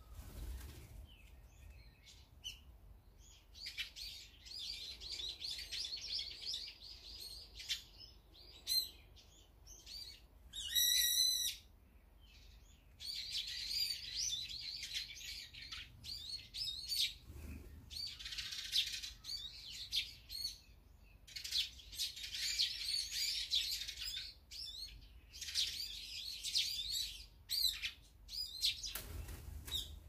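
Several small songbirds chirping and twittering in bursts, with a run of loud, sharp repeated calls about eleven seconds in.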